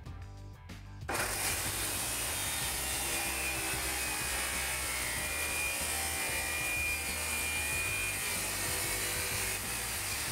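Corded electric circular saw starting about a second in and cutting along a wooden stair tread to take off the nosing: a steady, high saw noise that eases off near the end. Soft background music plays underneath.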